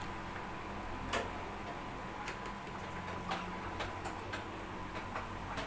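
Light, sharp ticks about once a second, with a few extra clicks in between, over a faint steady hum.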